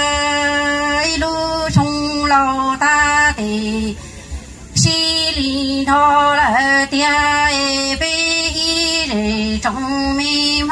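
A woman singing a song in Hmong into a hand-held microphone, amplified through stage speakers. She holds long notes and slides down in pitch on a few, with a short break about four seconds in.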